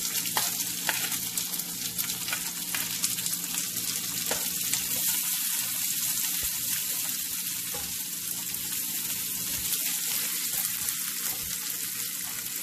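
Chopped onions sizzling with a steady high hiss in hot oil with mustard and fennel seeds in a nonstick frying pan, stirred with a silicone spatula, with a few sharp clicks.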